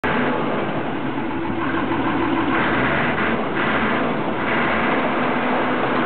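Massey-Ferguson MF400 bulldozer's engine running steadily, with a deeper low rumble for a couple of seconds around the middle.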